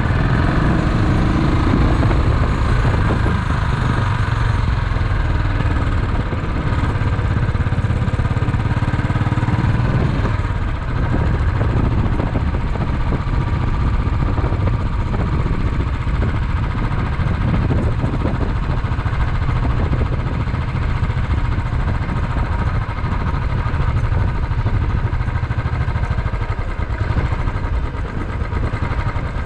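Motorcycle engine running steadily as the bike rides along a street, with a constant low rumble.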